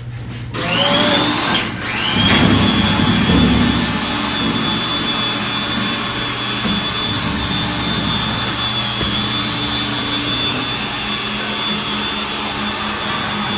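An electric motor starting with a rising whine, cutting out briefly, then starting again and running steadily at one high pitch.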